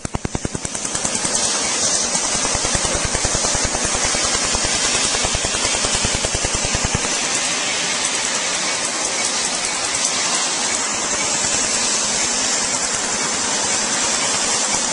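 Tattoo-removal laser handpiece firing rapid pulses, an even clicking of about ten a second that is strongest for the first seven seconds or so. Under it, a steady hiss of chilled air blowing from the cooling hose onto the skin.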